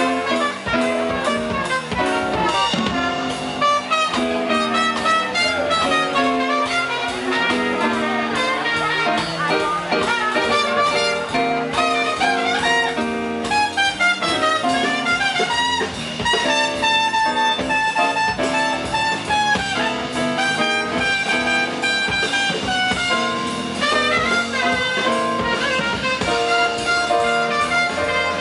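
Live traditional New Orleans jazz: a trumpet plays a lead solo over electric bass and drum kit.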